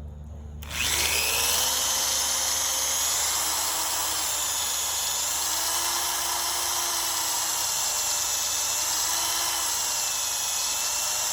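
Electric drill starting up about a second in, its motor whine rising and then holding steady with a slight waver in pitch as the bit bores into a torch-welded aluminum repair, which is harder than the base metal.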